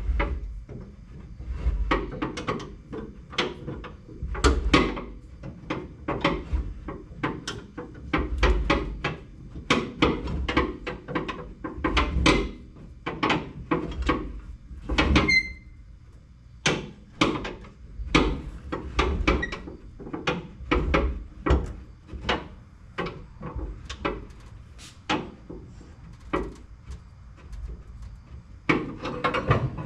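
Irregular knocks and clanks of hand-tool work on the truck, about two to three a second, over low rumbling thumps, with one short metallic ring about halfway through.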